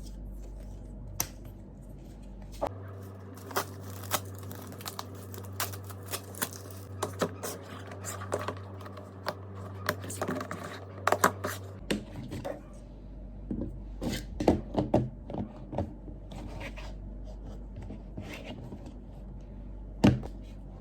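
Irregular small clicks, taps and scratches of objects being handled by hand. They come thickest in the first half, with one sharper click near the end.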